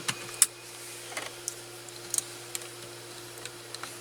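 Scattered light plastic clicks and taps as a steering-column clock spring is fitted and seated on the column. The clicks are irregular: a few in quick succession at the start, then single ones spread out, over a steady low hum.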